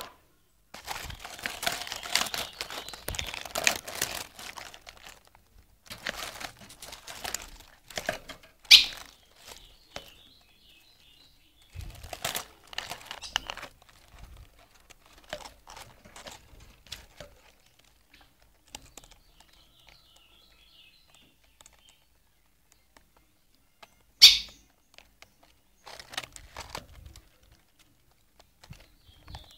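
Rustling and clattering of handling close to the microphone, with two sharp loud clicks. Between them come short runs of faint, high, rapid cheeping from newly hatched reina mora (ultramarine grosbeak) nestlings begging in their cup nest.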